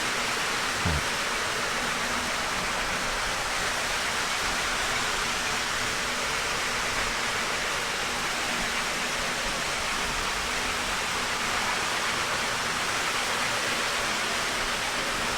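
Several O-gauge model trains running at once on three-rail track: a steady, even noise of wheels on rail and train motors, with a faint steady hum underneath.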